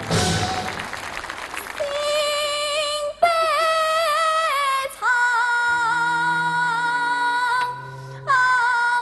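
Applause for about the first two seconds, then a female Yue opera singer in a male role holding long sung notes with a wavering, ornamented pitch over instrumental accompaniment, with two brief breaths between phrases.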